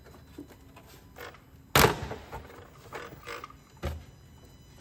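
Plastic engine top cover of an Audi 2.0 TDI being pulled up off its mounts by hand: a sharp, loud clunk a little under two seconds in, plastic rubbing and scraping, and a second knock near the end.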